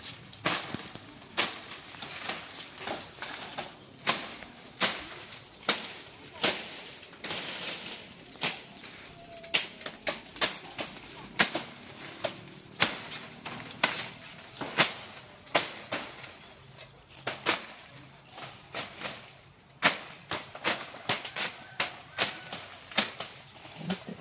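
Salak palm fronds swishing and crackling as they are pushed through and brushed aside, in irregular sharp strokes about one or two a second.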